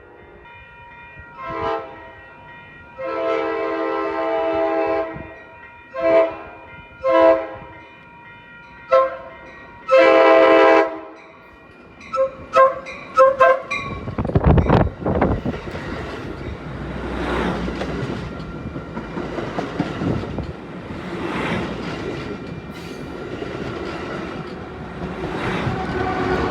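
Amtrak Pacific Surfliner train's multi-chime air horn playing a horn show: a short blast, a long one, two short, another short and a long, then a quick flurry of short toots. After that the train passes close by, rumbling, with its wheels clacking over the rail joints in a steady beat.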